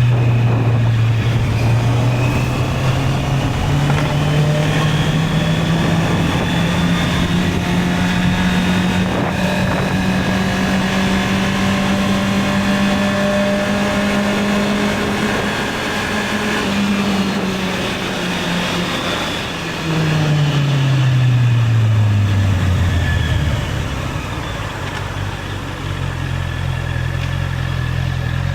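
Honda CB650R's inline-four engine under way. Its note steps up a few seconds in and climbs slowly as the bike accelerates and cruises, then falls steadily as it slows, settling to a steady lower note near the end.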